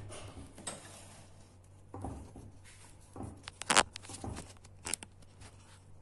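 Handling sounds around a dish lined with plastic food wrap: light rustling and a few dull knocks, with the loudest, a sharp clack, a little past halfway and another click near the end.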